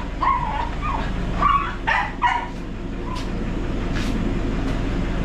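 A dog whining and yipping in short high cries, about six in the first two and a half seconds, over a steady low hum.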